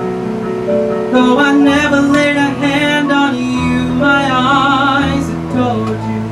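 A man singing a slow, haunting ballad into a microphone over instrumental accompaniment with sustained chords and a moving bass line. A sung phrase ends in a long held note with vibrato about four seconds in.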